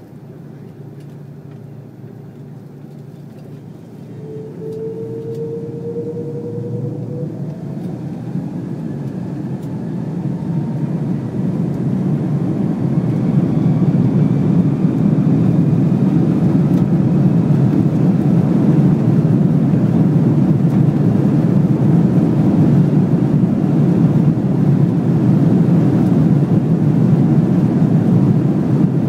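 Airbus A330-300 jet engines spooling up to takeoff thrust, heard inside the cabin. About four seconds in, rising whining tones begin and the engine noise builds for about ten seconds, then holds loud and steady as the takeoff roll runs on.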